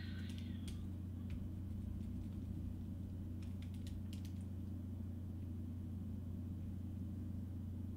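Steady low hum of background noise, with a few faint short clicks, a small cluster of them about three and a half to four and a half seconds in.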